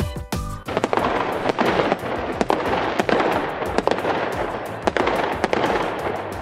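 Fireworks sound effect: dense crackling of many small pops with sharper cracks scattered through, starting under a second in as a few musical notes end.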